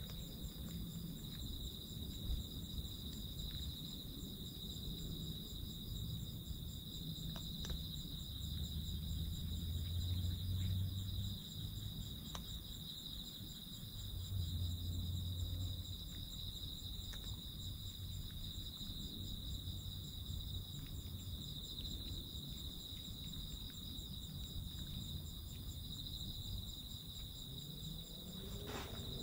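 Crickets chirping in a steady, fast-pulsing high trill, with a low rumble that swells twice.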